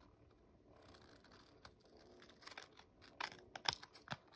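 Scissors snipping through the overhanging ends of patterned-paper strips along the edge of a cardstock card base, trimming off the excess. It is faint at first, then comes a quick run of short, sharp snips in the second half.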